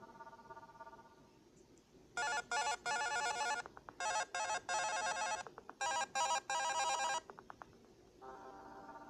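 Electronic alarm tone from an Amazon Fire device: a trilling, phone-like ring in three bursts of about a second and a half each, with short gaps between them. The tail of a softer melodic alarm tone fades out at the start, and another melodic tone begins near the end.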